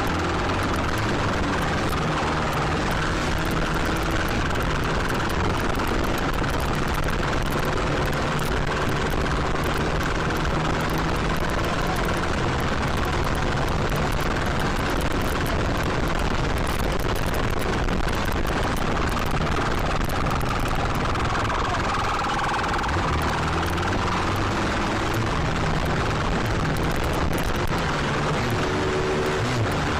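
Motorcycle engine running steadily while riding through traffic, with wind rushing over the microphone. The engine's pitch shifts a little near the end.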